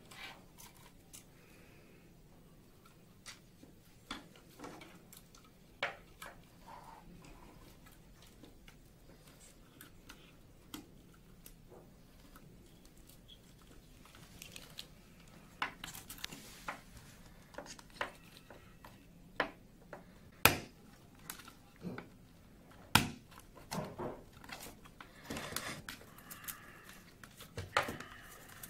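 Hands handling a plastic fibre-optic splitter tray and its coiled fibre: scattered clicks, taps and rustles of plastic parts, busier in the second half, with two sharper clicks past the middle.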